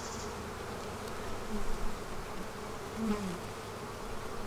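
Honeybees buzzing around an opened hive as a frame of bees is lifted out. A louder buzz swells and falls in pitch twice, about a second and a half in and again about three seconds in, as bees pass close.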